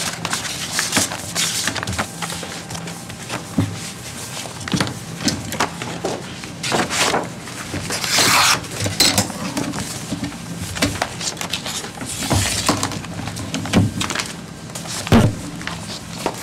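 Paper rustling and handling as bid sheets are taken out and leafed through, with scattered small knocks and clicks, and two longer rustles about eight and twelve seconds in. A faint low hum runs underneath.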